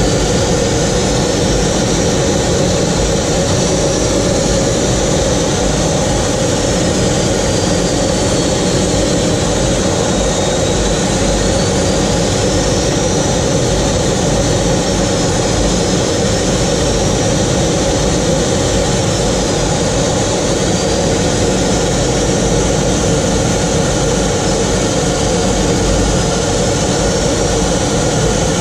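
Jet trainer's engine heard from inside the cockpit in flight: a steady loud rush with a high whine that slowly rises and falls in pitch several times.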